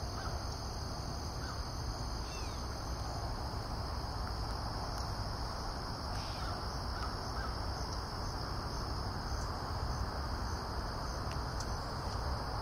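Steady outdoor ambience: a continuous high-pitched insect drone over a low rumble, with a few faint, short bird calls.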